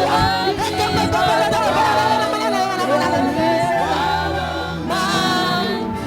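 A church congregation's many voices raised together in loud, continuous group prayer and song, over sustained backing music.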